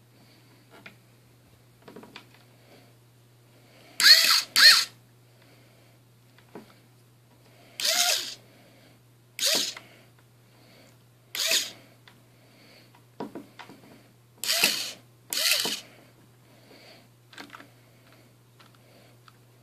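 Short whirring bursts from the small electric motors that work the suspension of a wired-remote 1966 Impala scale-model lowrider, lifting and dropping its corners on three wheels. There are about eight bursts, some in quick pairs, each pitch rising then falling, with faint clicks between them over a faint steady low hum.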